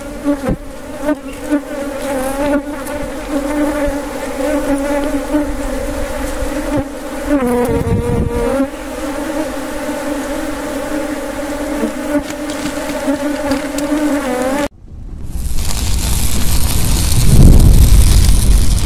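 Swarm of wild honeybees buzzing around their exposed comb, a steady droning hum with a few louder passes near the microphone. About 15 seconds in it cuts off suddenly and an intro sound effect follows: a rising whoosh that swells into a deep rumble.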